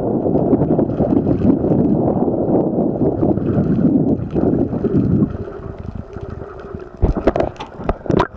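Underwater camera moving through water while swimming: a dense low rumble of water rushing past the housing that drops away about five seconds in, leaving a faint steady hum, then a few sharp knocks near the end.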